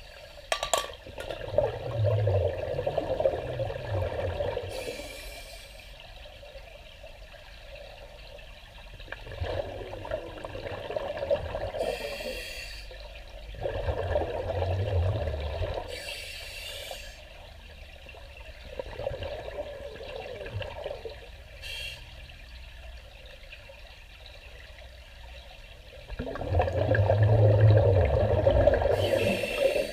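Scuba diver breathing underwater through a regulator: bursts of exhaled bubbles gurgling up about five times, every four to six seconds, with quieter stretches between breaths. The longest and loudest exhalation comes near the end.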